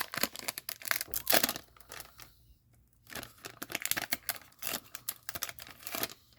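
Crinkling plastic trading-card pack wrapper and rustling cards being handled, in two spells of crackly noise with a short pause about two seconds in.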